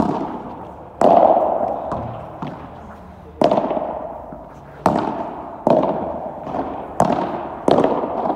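Padel rally: the ball pops sharply off the rackets and the court about once a second, each hit ringing out in a long echo under the covered hall's dome.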